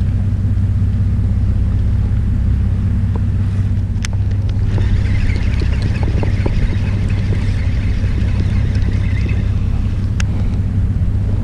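Boat engine running with a steady low hum. From about five to nine seconds a baitcasting reel is cranked, a light whirring over the engine, with a sharp click just before it starts and another near the end.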